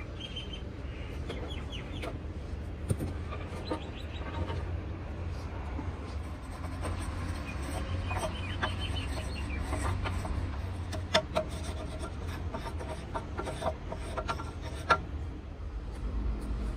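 Knocks and scrapes of mould pieces and a cast cement planter being handled as it is demoulded, the sharpest knocks coming in the second half, over a steady low hum. Short bird calls sound in the background near the start and again midway.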